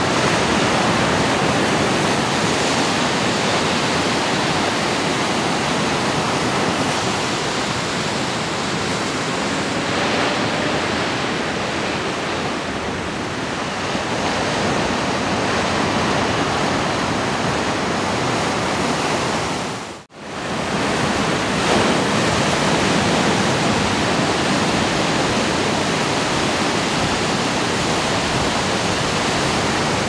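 Ocean surf: a continuous rush of waves breaking and washing onto the shore. The sound cuts out for a split second about two-thirds of the way through, then comes straight back.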